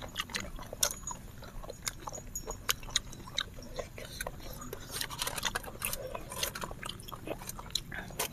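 Close-miked eating sounds: chewing and mouth sounds, with irregular small clicks and taps of wooden chopsticks picking noodles and pieces of food off a foil-lined tray.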